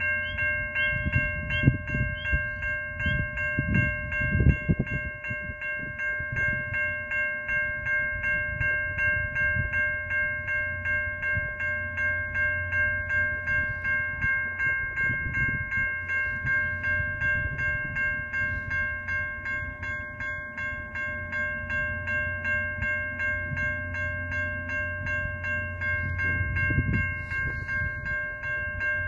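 Railway level-crossing bell ringing steadily in a quick, even rhythm, over the low rumble of a train at the crossing, with a few heavy knocks in the first few seconds.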